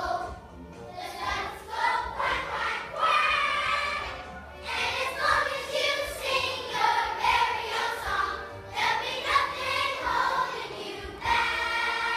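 A large group of children singing together as a choir.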